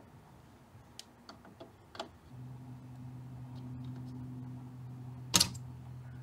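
Light clicks and taps of pliers and a soldering iron working at the eyelets of a vintage amp's capacitor board, with one louder, sharp click near the end. A steady low hum comes in a little over two seconds in.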